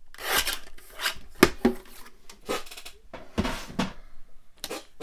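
Paper rustling and being handled, with a few sharp knocks, the loudest about a second and a half in, as a plastic paper trimmer is lifted off the cutting mat.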